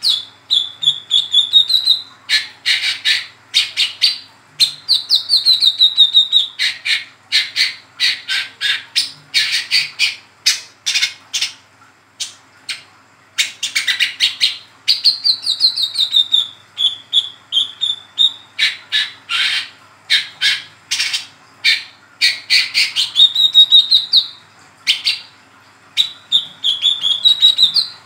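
Brown-throated sunbird (kolibri kelapa), a young mottled 'trotol' bird, singing its rapid twittering 'ngeriwik' song. It gives runs of sharp high chips, several a second, with short gliding trills mixed in, and pauses briefly twice.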